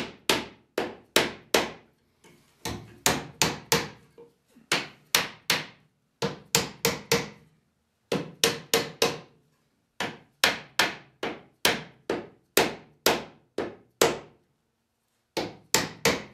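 Hammer blows on a Windsor chair's arm and spindles, tapping the continuous arm down over the spindle ends during a dry fit. The blows are quick and sharp, about three a second, coming in runs of four to eight with short pauses between.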